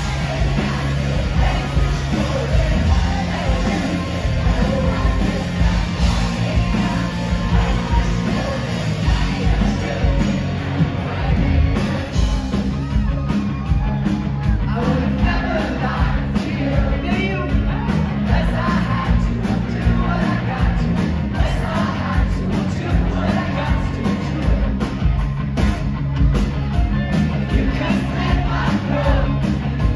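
Live rock band playing at full volume: electric guitars, bass and a driving drum kit, with a male lead singer singing and shouting over it. Recorded from within the audience, so the sound is loud and crowd-level.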